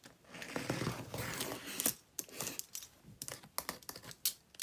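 Packing tape on a cardboard box being slit open: a rasping stretch for about the first two seconds, then scattered scrapes and taps on the cardboard.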